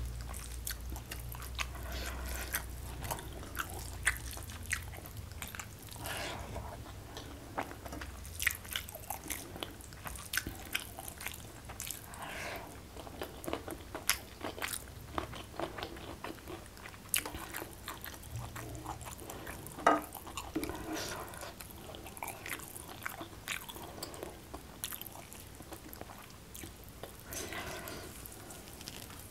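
Close-miked chewing and biting while eating rice and side dishes by hand: many short, irregular crunches and wet mouth clicks, with fingers squishing rice in a bowl.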